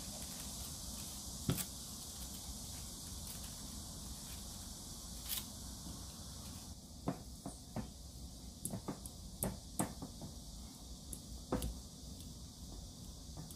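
Metal spoon scraping soft baked potato from its skin and tapping on a glass bowl, then a fork mashing the potato in the bowl: scattered light clicks and taps, more frequent in the second half, over a steady hiss.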